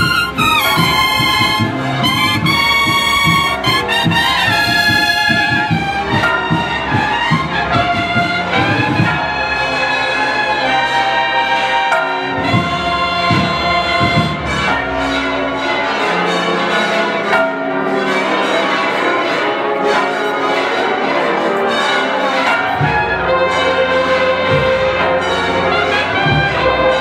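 Spanish Holy Week bugle band of cornetas playing a processional march over a steady drumbeat. The full bugle line is loudest in the first six seconds, then the music thins to fewer voices.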